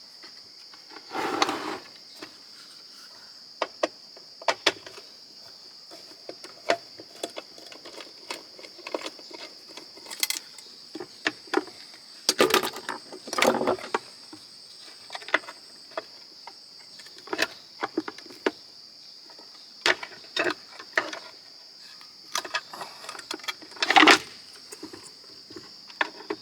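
Irregular clicks, taps and clatters of a screwdriver and loose metal and plastic parts being handled while a waffle maker is taken apart, with a few louder knocks. A steady high-pitched hum or chirr continues underneath.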